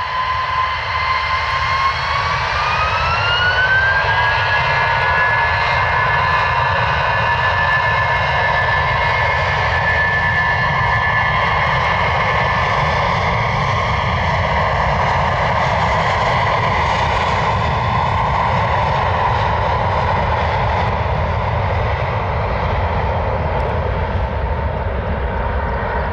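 Airliner jet engines at high power: the engine whine rises in pitch about two to four seconds in, then holds steady over a constant rumble, as when the engines spool up for a takeoff run.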